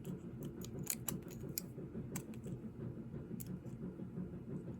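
Light, irregular clicks and taps of small metal carburetor parts and a tool being handled while the float pin is worked at, over a steady low hum.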